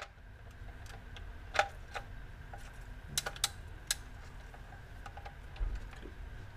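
Ratchet wrench tightening a car's oil drain plug: a few scattered sharp metal clicks, with a quick run of three about halfway through.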